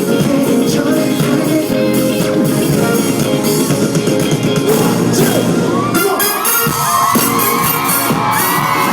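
Loud pop music with singing, performed live. About six seconds in the bass thins out and high sliding tones come to the fore.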